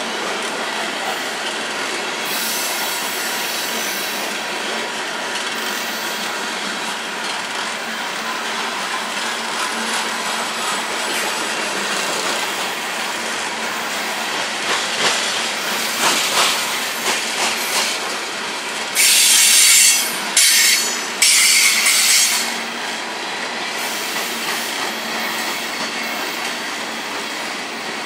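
Coal hopper cars of a freight train rolling past, the wheels clacking steadily over the rail joints. About two-thirds of the way through, a loud high-pitched wheel squeal cuts in three times in quick succession, after shorter squeals a few seconds before.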